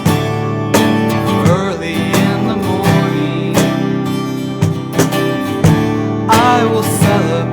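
Music led by a strummed acoustic guitar, with regular strums and sustained chords.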